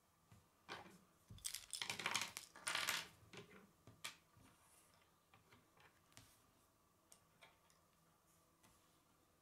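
Plastic K'nex pieces clattering onto a wooden tabletop, a dense rattle from about a second in to three seconds, followed by a few scattered light clicks as the pieces are handled.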